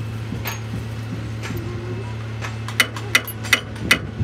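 Sharp metallic clicks from a hand wrench working the nuts on the studs of an excavator's front wheel hub: a few faint ones at first, then five loud strikes about three a second near the end. A steady low hum runs underneath.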